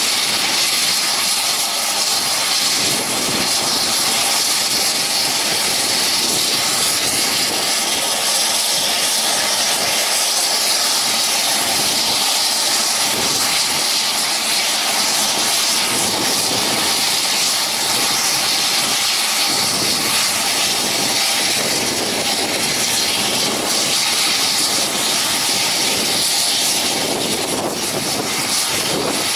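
A Saab 340B's two General Electric CT7 turboprop engines running steadily at low power on the ground, propellers turning. It is a constant high-pitched turbine whine over propeller noise.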